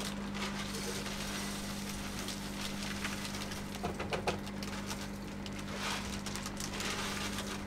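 Alder wood chips rustling and clicking as they are handled for a fish smoker, with a steady low hum underneath.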